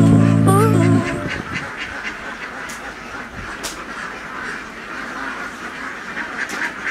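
Backing music stops about a second in, then a large flock of ducks quacks together in a dense, continuous chatter.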